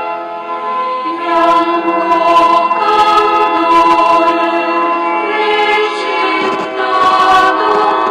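A slow hymn sung by voices in long held notes.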